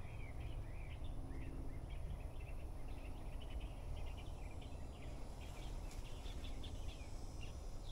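Small birds chirping in short, quick notes scattered throughout, over a steady low outdoor background rumble.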